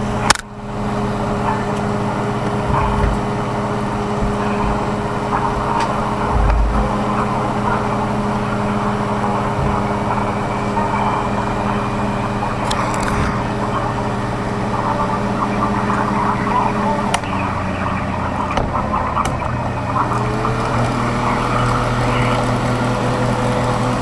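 Steady low mechanical hum and rumble, like a running vehicle's noise, with a sharp click right at the start. About twenty seconds in, a tone glides upward and then holds.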